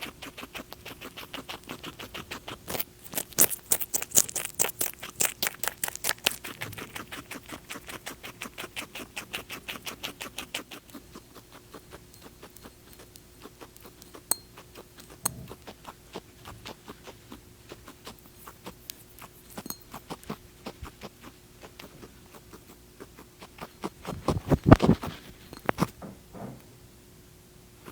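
Rapid light clicking or tapping, several clicks a second, dense and loud for several seconds and then sparser, over a faint steady hum; a louder, deeper sound comes near the end.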